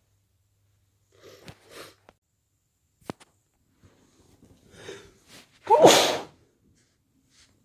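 A person with a head cold sneezing once, sharply and with voice, about six seconds in, after a few short breaths and a quick catching inhale.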